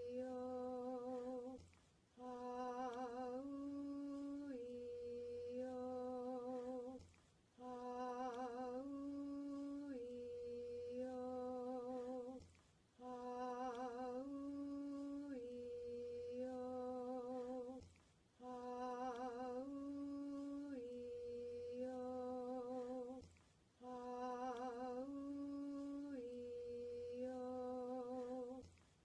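A single voice slowly chanting the vowel sequence "ah-oo-ee-oh" over and over, each vowel held about a second on a near-level pitch. A short breath pause falls between repetitions, about every five and a half seconds, and the chant is sung through five times in full.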